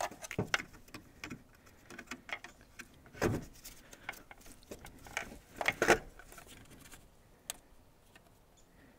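Small clicks, taps and scrapes of a small screwdriver prying at the plastic locking clips of an alternator's sensor harness connector, with louder knocks about three seconds in and around six seconds.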